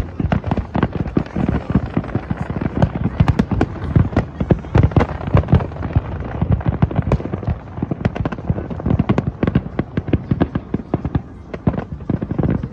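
Aerial fireworks display in full barrage: a dense, continuous run of bangs, many a second, with no let-up.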